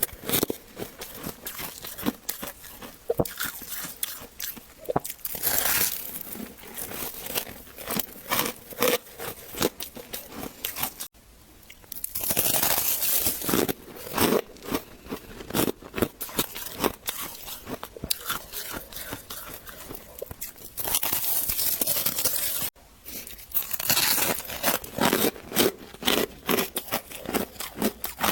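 Close-miked crunching and chewing of freezer frost: dense, irregular crisp crackles as the icy frost is bitten and ground between the teeth. It breaks off abruptly twice, about a third and four-fifths of the way through.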